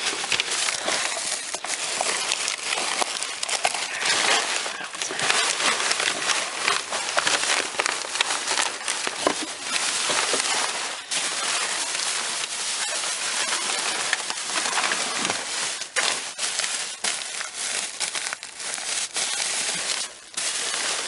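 Plastic bags, paper and packaging rustling and crinkling continuously as hands dig through discarded store stock in a dumpster, with many small clicks and knocks mixed in.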